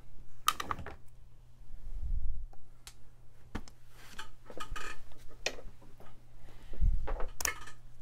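Small clicks, taps and clatter of a laptop and tools being handled on a workbench, with low thumps about two seconds in and again near the end, over a steady low hum.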